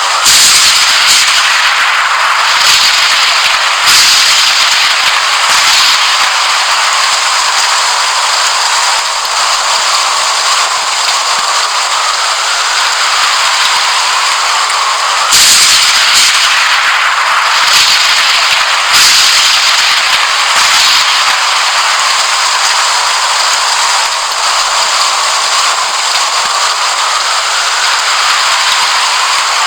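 Thunderstorm: heavy rain hissing steadily, broken by several sudden sharp thunder cracks, at the start, about four seconds in and a few times between fifteen and twenty-one seconds in.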